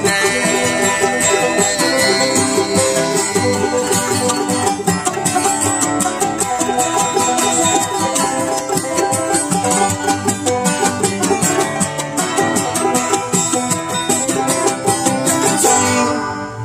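Acoustic string music with quick, steady plucked notes over held chords, no singing, ending near the end.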